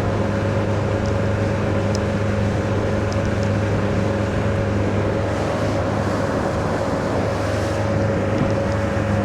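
Mercruiser 120 hp four-cylinder sterndrive engine running steadily at part-throttle cruise, with the rush of wind and water as the boat planes. The engine is being kept at modest revs to break in a new outdrive.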